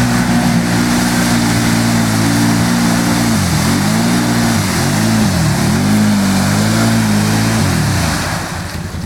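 ATV engine held at high revs with its tyres spinning in a deep mud hole, mud and water spraying. A few seconds in, the throttle is let off and opened again several times, and the revs fall away near the end.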